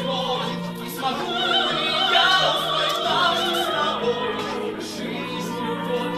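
Operatic singing with orchestral accompaniment: a voice with strong vibrato over a held low note, swelling a little about two seconds in.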